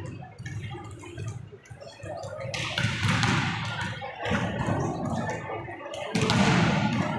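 Volleyballs being spiked and slapped during a warm-up, echoing in a large indoor hall. Two hard hits land about two and a half seconds and six seconds in, each ringing out for about a second, with lighter ball slaps and bounces between.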